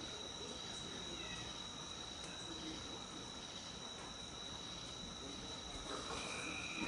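Night insects chirping outdoors in a steady, continuous high-pitched chorus.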